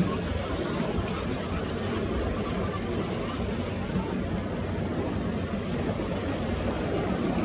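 Wind rumbling on the camera microphone over the wash of sea waves: a steady, even noise with no distinct events.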